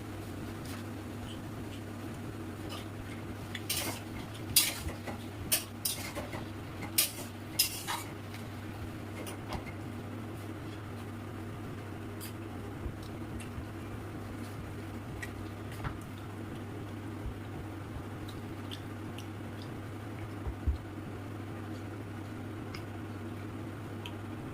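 Dishes and cutlery clinking during a meal: a run of sharp clinks about four to eight seconds in, then only occasional faint clicks, over a steady low hum.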